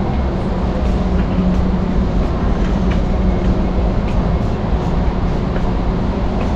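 Steady low rumble with a constant hum inside a large warehouse store, with a few faint ticks.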